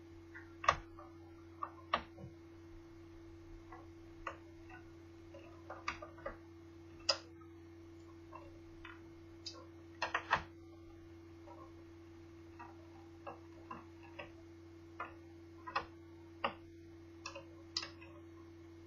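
Irregular small clicks and taps of tools and plastic parts while a Toshiba Satellite L650D laptop is being taken apart, with a steady low hum underneath.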